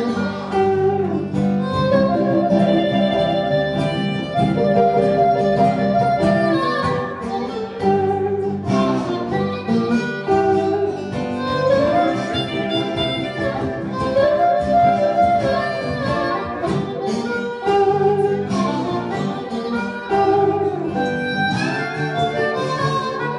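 Live acoustic blues played as an instrumental break: a blues harmonica plays long held, bending notes over a six-string guitar and a tenor guitar strumming the accompaniment.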